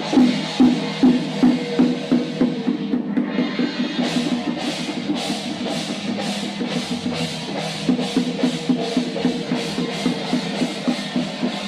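Percussion music led by drums beating a steady rhythm, about two strokes a second, quickening about four seconds in with brighter, sharper strokes.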